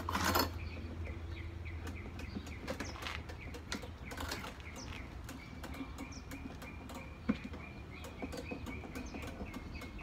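Plastic housing parts of an electric chipper shredder being handled as it is opened up: a brief clatter at the start, then scattered light clicks and one sharper click about seven seconds in. From about halfway a small bird chirps over and over in quick succession.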